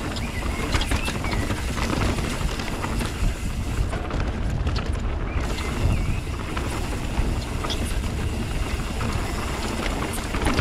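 Mountain bike descending a dirt singletrack at speed: a steady rush of tyre noise and wind on the microphone, with frequent clicks and rattles from the bike over the rough ground.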